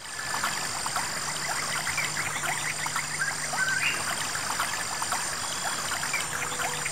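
Night-time nature ambience of insects and frogs. A steady high-pitched insect trill runs throughout, with many short chirps scattered through it. It starts and stops abruptly.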